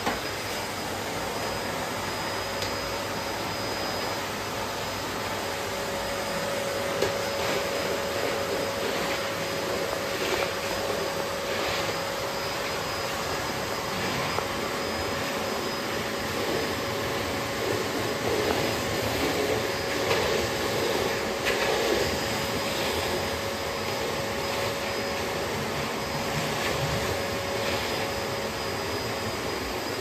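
Bosch BGS21X320 bagless canister vacuum cleaner running steadily: an even rushing motor noise with a faint steady whine, broken by a few brief knocks as it is used on a hard floor.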